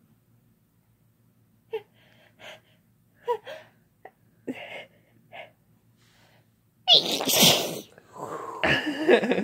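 A person builds up to a sneeze with a few short, catching breaths, then sneezes loudly about seven seconds in, with more noisy breath right after.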